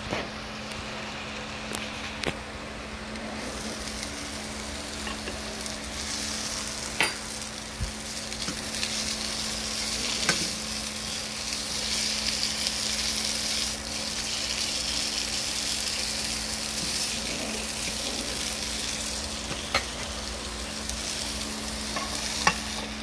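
Sausages sizzling in a nonstick frying pan, a steady hiss that is louder in the middle while the pan is uncovered, over a steady low hum. A few light clicks and knocks come from a fork and a glass lid against the pan.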